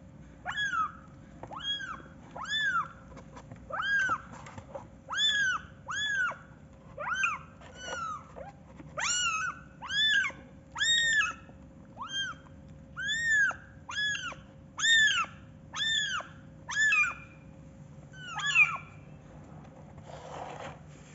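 Young kitten mewing over and over: short, high-pitched mews, each rising and falling, at a little more than one a second.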